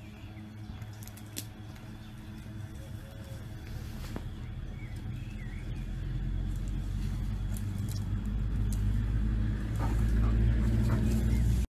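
A steady low engine-like hum that grows louder toward the end, over scattered light scratches and clicks from a dog digging in loose dirt. The sound cuts off suddenly near the end.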